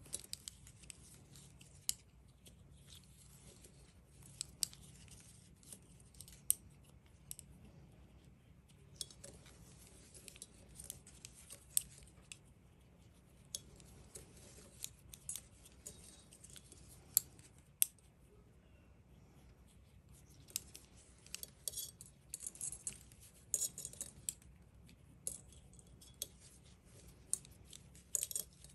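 Metal knitting needles clicking and tapping against each other in short, irregular ticks as knit stitches are worked one after another along a row.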